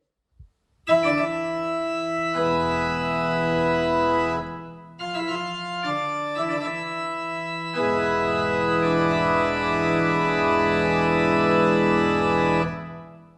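Organ playing full, sustained chords. It comes in about a second in, breaks off briefly about a third of the way through, then plays on in long held chords that fade out near the end.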